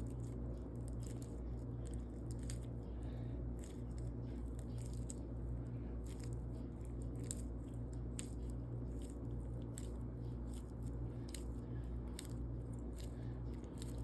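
Homemade slime with big balls mixed in being squeezed and worked in the hands: a run of small sticky clicks and crackles. A steady low hum runs underneath.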